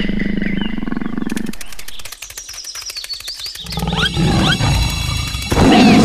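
Tiger growling and roaring, a dubbed sound effect. The growl gives way about a second and a half in to a fast run of clicks, and the roaring returns with short rising squeals, loudest near the end.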